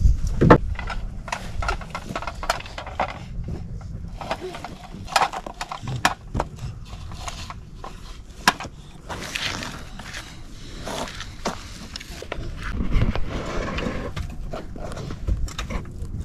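A toddler playing in a plastic sandbox: sand scraping and shifting under small hands, with irregular taps and knocks of plastic toys.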